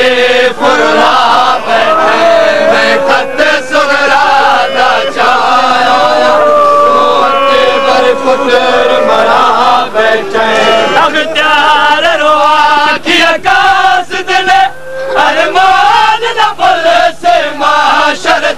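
Male voices chanting a Punjabi noha, a mournful lament, with one long drawn-out line held about a third of the way in. Sharp slaps keep time through most of it: the mourners' matam, chest-beating.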